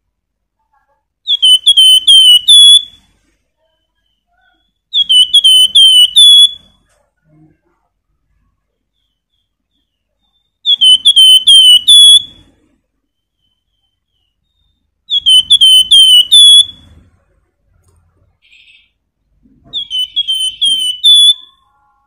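Caged flamboyan (Horsfield's babbler) singing loud, ringing whistled phrases, five times with pauses of a few seconds between. Each phrase is a rapid run of four or five repeated hooked notes ending on a slightly higher one.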